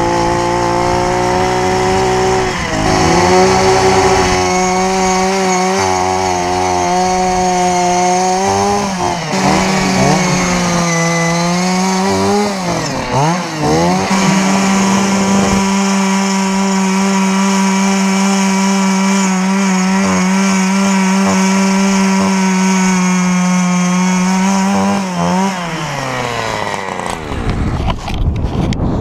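StrikeMaster gas-powered ice auger running at speed as it drills through lake ice, its engine pitch wavering for a few seconds midway, then winding down near the end.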